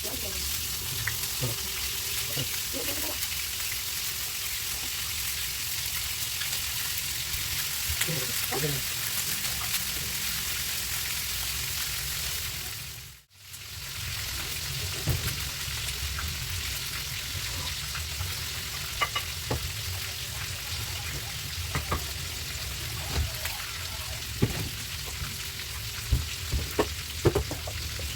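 Food frying in a pan with a steady sizzle, and occasional clicks of a utensil stirring it. The sound cuts out briefly about halfway through.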